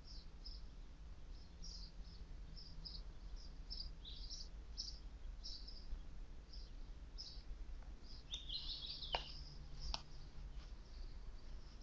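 Small birds chirping: short, high chirps repeating irregularly, with a denser burst of twittering about eight seconds in, over a steady low background rumble. Two sharp clicks come near the ninth and tenth seconds.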